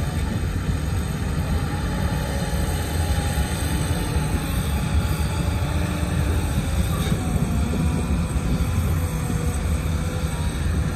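Diesel engine of a Cat 323GC excavator running steadily as it works, a deep low rumble with a few faint tones drifting slightly in pitch.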